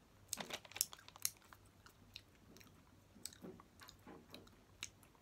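A person chewing a chewy, shredded dried-fruit snack with the lips smacking, in irregular wet clicks that are sharpest in the first second and a half.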